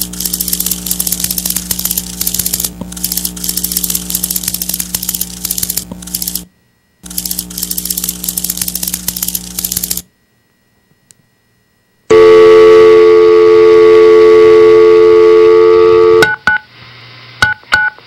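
Typewriter-key clatter sound effect, a fast run of clicks over a steady low hum, that breaks off briefly about six seconds in and stops at ten. After two seconds of silence comes a loud steady electronic tone for about four seconds, then a few short telephone-keypad beeps.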